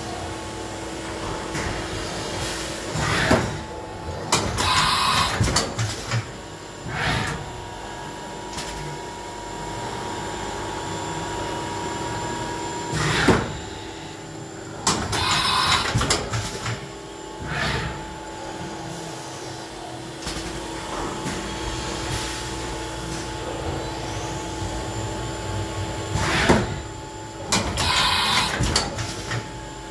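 Haas VF-2SS vertical machining center cycling through tool changes on its side-mount tool changer. Roughly every twelve seconds there is a clunk, a hissing burst of about a second and a half, then another clunk, over a steady machine hum; this happens three times.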